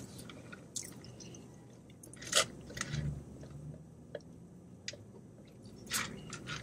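Quiet eating and drinking mouth sounds: chewing and sipping a soft drink through a straw, with a few short sharp clicks spread through and a short low hum about three seconds in.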